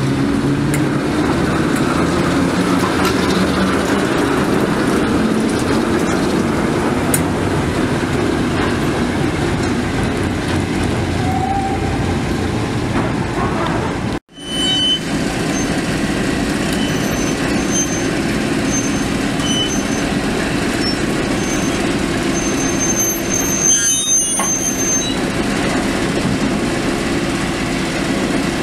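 Diesel shunting locomotive's engine running steadily with a low drone, broken once by a sudden gap about halfway through. A few brief high-pitched squeaks sound near the end.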